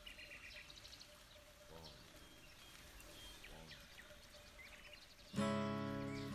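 Faint outdoor ambience with birds chirping and two short animal calls about two and four seconds in. Near the end a strummed acoustic guitar chord comes in loudly and rings on as the song starts.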